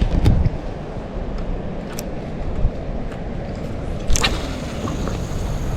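Wind buffeting the microphone as a low, uneven rumble, with a few sharp clicks, the loudest about four seconds in.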